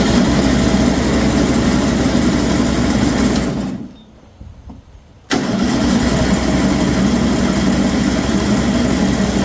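John Deere Z225 zero-turn mower's engine being cranked by its starter without catching, in two attempts with a pause of about a second and a half about four seconds in. It won't fire because the fuel solenoid on the bottom of the carburetor was left unplugged.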